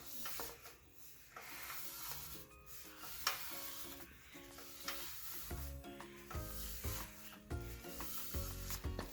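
An oiled paper serviette being rubbed back and forth over a grill to grease it, with background music.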